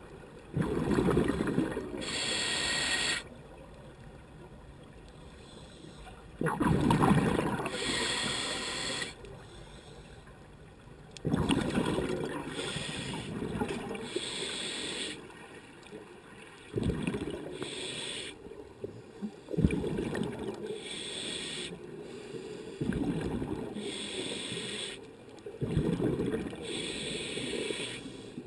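Scuba diver breathing through a regulator underwater: several breaths a few seconds apart, each a hiss of inhalation and a gush of exhaled bubbles.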